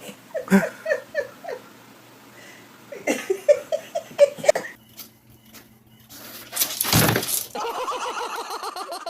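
A person laughing in repeated bursts, with a brief loud rushing noise about seven seconds in, followed by faster, longer laughter.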